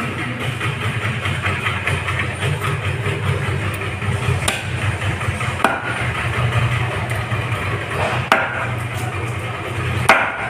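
A heavy cleaver chopping grey emperor fish on a wooden block: four sharp strikes a second or more apart, the last the loudest, over a steady low mechanical hum.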